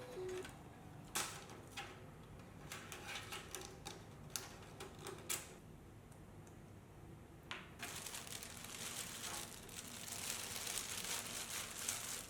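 Scattered small clicks and taps, then, from about two-thirds of the way in, a steady crinkling rustle, like hands working with parts and packaging.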